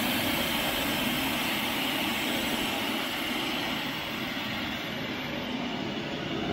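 Pressure washer spraying water in a steady hiss over the low hum of its motor, rinsing dirt off a Jeep's wheels and fender wells.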